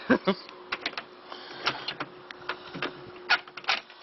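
Irregular clicks and knocks, a dozen or so scattered over a few seconds, the loudest at the very start and about three and a half seconds in, over a faint steady hum.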